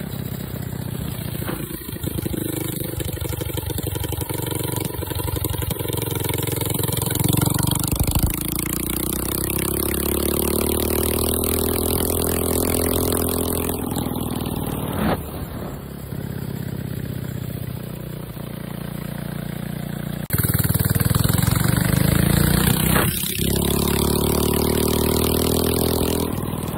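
Homemade mini bike's small engine running under throttle while being ridden, its pitch climbing twice as the bike accelerates, with wind noise on the phone's microphone.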